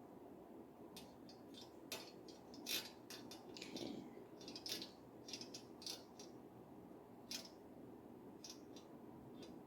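Shower-head parts being handled and fitted together: a scatter of irregular light clicks and rattles, the sharpest about three seconds in, over a faint steady room hum.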